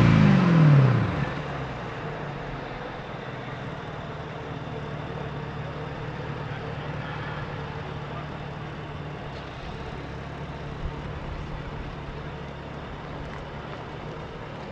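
2013 Mercedes-Benz SLK55 AMG's 5.5-litre V8 falling back from a rev in the first second, then idling steadily through its quad exhaust.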